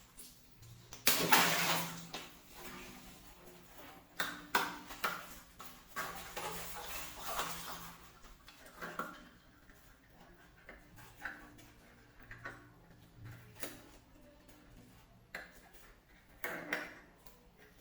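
Water balloons popping and splashing: a loud burst of water about a second in, then a scatter of sharper, shorter pops and splashes.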